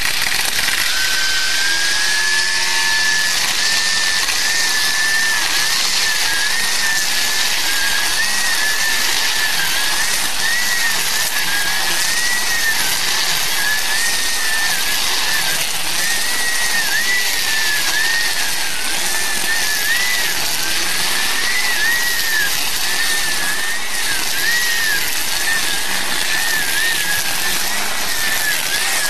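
Greenworks 40V cordless string trimmer running steadily, its electric motor and spinning nylon line cutting through grass and weeds. A high whine wavers up and down in pitch as the line meets the growth.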